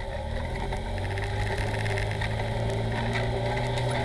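Polaris RZR side-by-side's engine running at a steady pitch, picking up slightly about a second in, heard from inside the open cab while driving a rough dirt trail. Short rattles and knocks from the chassis and cab over the bumps come through.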